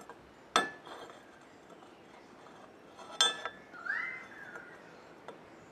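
Steel connecting rod with a phosphorus bronze bush clinking against the crank as it is worked round on the crank pin to check the fit, with two sharp ringing metal clinks, about half a second in and a little after 3 s. A short high squeak follows just before 4 s.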